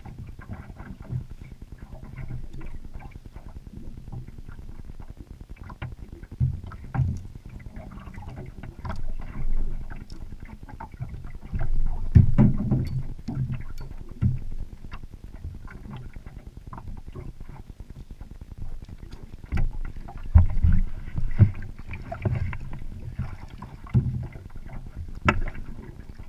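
Irregular knocks, thumps and clatter of gear and fish being handled on the deck of a small fishing boat, over a steady low rumble of wind and water, with the loudest thumps about halfway through and again near the end.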